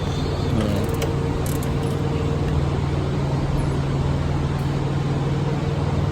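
Steady low mechanical hum of shop background machinery, with a few faint clicks of tools being handled about a second in.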